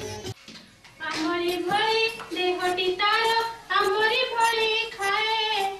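Dance music cuts off about a third of a second in. After a short pause a child sings unaccompanied in short, held phrases.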